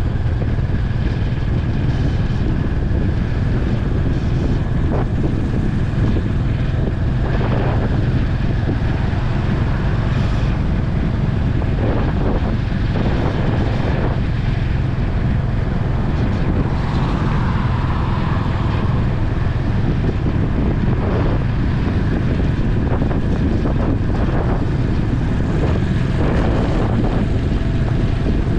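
Honda H'ness CB350's single-cylinder engine running steadily at expressway cruising speed, with wind noise on the microphone.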